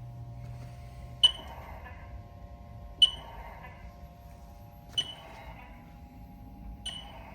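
HAAS four-head 5C CNC rotary indexer stepping through its positions under servo drive, with a steady whine. A sharp metallic clack with a brief ring comes four times, about every two seconds, as each index move stops and locks.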